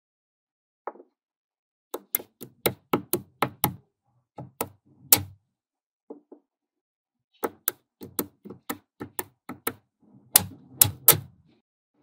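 Magnetic balls clicking as they snap together: sharp clicks, several a second, in runs broken by short pauses.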